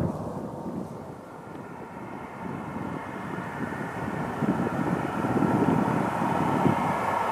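Jet engines of a Boeing 737-800 (CFM56) during its takeoff, growing steadily louder after a brief lull a second in, a steady engine whine over a low rumble.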